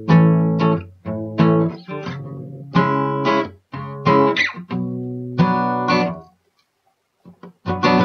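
Acoustic guitar strummed chords, about one every second and a half, each ringing and then stopped. The playing pauses about six seconds in and starts again near the end.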